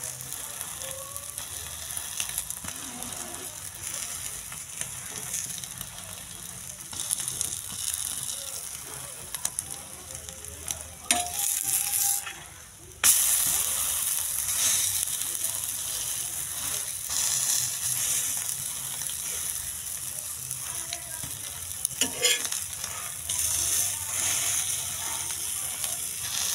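Egg frying in oil on a flat iron griddle, sizzling steadily, with a steel spoon now and then scraping and pressing on the pan. The sizzle drops away for about a second a little before halfway, then comes back louder.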